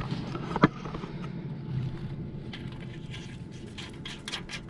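A single sharp click about half a second in as a dust cap is fitted onto the mower's oil drain, followed by faint small handling ticks over a low steady background hum.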